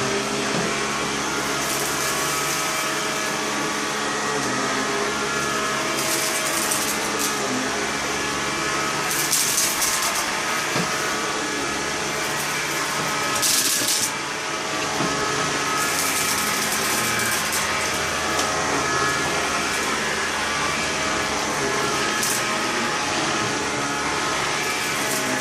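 Bosch Athlet 18 V cordless vacuum cleaner running steadily on speed 1 with its brush bar turning, picking up dust from a carpet. A steady motor whine with short bursts of hiss every few seconds.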